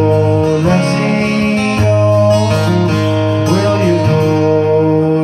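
Steel-string acoustic guitar strumming slow, sustained chords that change every second or two, accompanying a folk song.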